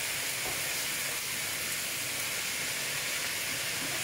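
Sliced pork and blanched potato slices sizzling steadily in hot oil in a frying pan on a gas burner as they are stir-fried with a wooden spatula.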